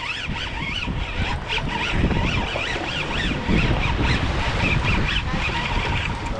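Wind rumbling on the microphone over the sound of a boat at sea, with a string of short, wavering high-pitched squeals.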